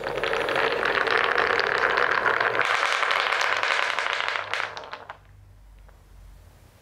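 A train of blue balls rolling and clattering along a wooden marble-run track, a dense run of quick clicks and knocks as they hit the wood and each other. It dies away about five seconds in as the balls come to rest in the collecting tray.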